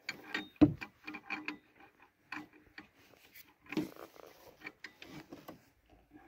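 A hand wrench clicking and scraping on the alternator mounting bolts as it is fitted and worked in short, irregular strokes, metal tapping on metal.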